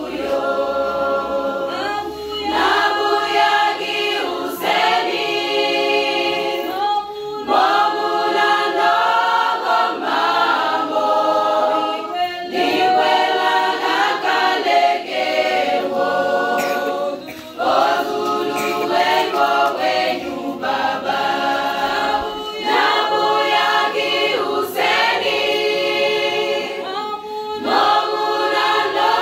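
Women's choir singing a gospel hymn a cappella, phrase after phrase with short breaks between them.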